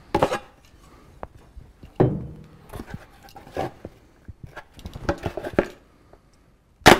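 Utility knife scoring GoBoard foam backer board, with short scraping strokes and crackles as the blade and hands work the board. Near the end comes one sharp, loud crack as the board is snapped along the partly cut line.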